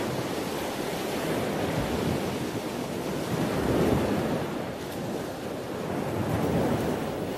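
Ocean surf: waves washing in and drawing back, the rush rising and falling in slow swells.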